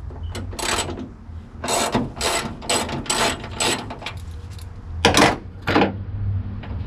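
Ratchet wrench clicking in a series of short strokes, about eight in all, with a pause after the middle, as it loosens a 12 mm hood hinge bolt.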